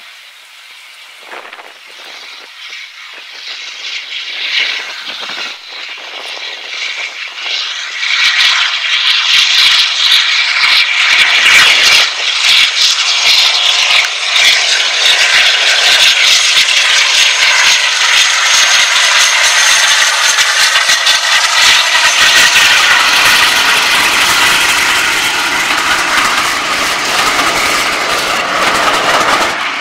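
A Class 52 'Western' diesel-hydraulic locomotive, with twin Maybach engines, approaching under power. It grows steadily louder over the first eight seconds, then passes close by, loud and high-pitched, hauling its train.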